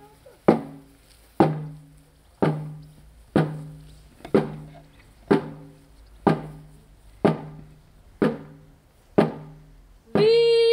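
A drum struck in a slow, steady beat, about one stroke a second, each stroke sharp with a short low ring. Near the end a loud drawn-out call breaks in and swoops up and down.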